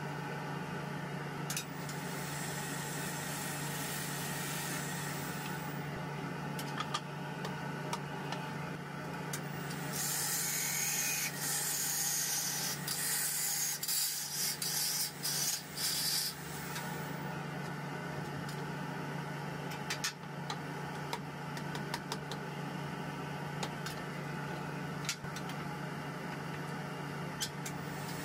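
Gouge cutting a zelkova bowl on a wood lathe: hissing cuts in stretches, the loudest through the middle, with scattered ticks, over a steady motor hum.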